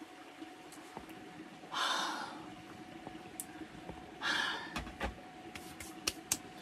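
A woman's two short, breathy laughs, about two seconds apart, followed by a few small clicks and knocks, over a faint steady hum.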